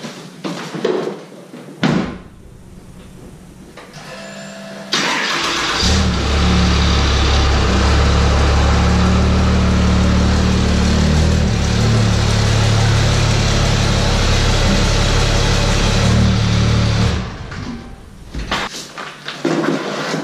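A truck door shuts, then the starter cranks briefly and a 4th-gen Ram's 6.7 Cummins inline-six turbodiesel fires up and runs loud and steady for about twelve seconds before stopping near the end.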